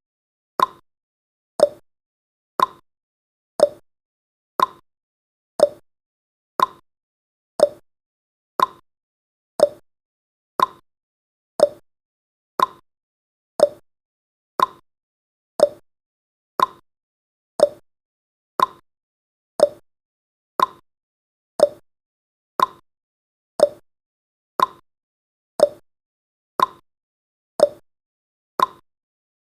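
Countdown timer tick sound effect: one short, sharp tick every second, steady and even.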